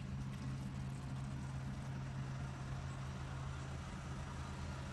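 Steady low hum under a faint even hiss.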